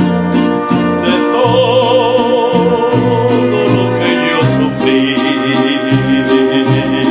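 Mariachi band playing a ranchera: a male lead singer holding wavering notes over violin, trumpet, and strummed vihuela and guitar, with deep bass notes on the beat.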